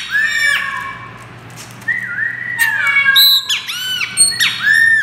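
Caged chopi blackbird (passo-preto) calling with loud, arching whistled notes and squawks, mimicking the call of a great kiskadee (bem-te-vi). There is a burst of notes at the start, a short lull, and then a quick run of loud notes over the last two seconds.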